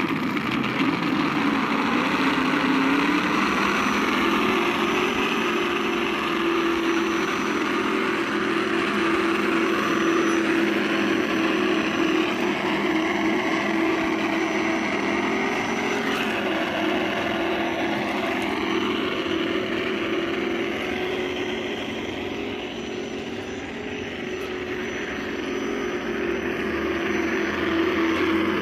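Axial Wraith RC rock crawler's onboard engine-sound unit playing a simulated engine, a steady drone mixed with the electric drivetrain's whine as the truck crawls, its pitch rising a little about four seconds in and dipping briefly around the middle.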